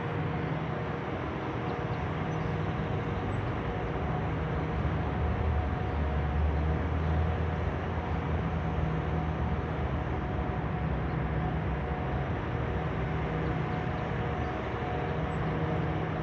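Continuous mechanical drone: a steady rushing noise with a low rumble and several fixed hum tones, unchanging throughout. The man recording takes it for motor or machinery noise coming from the hospital building.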